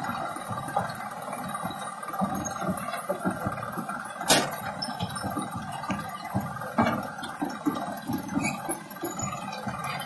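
Rail-mounted tractor's diesel engine running as it pulls a loaded steel wagon along the track, with a steady metallic rattle and sharp clinks, the loudest about four seconds in and another near seven seconds.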